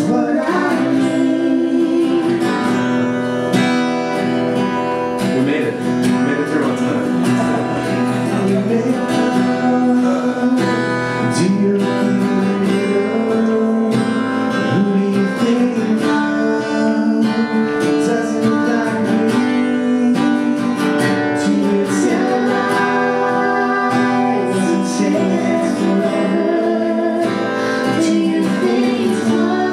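Live acoustic song: a strummed acoustic guitar with a man and a woman singing into microphones.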